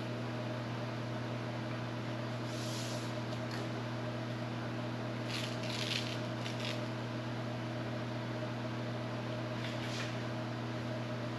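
Steady mechanical hum, with a few brief soft rustling scuffs as a self-adhesive sponge neoprene strip is handled and pressed onto a panel edge: near three seconds in, around six seconds, and again near ten seconds.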